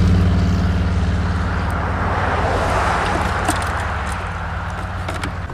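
Pickup truck's engine and road noise from the towed boat dying away as the rig slows toward a stop, with a rushing haze over the boat-mounted camera. A few light knocks come near the end.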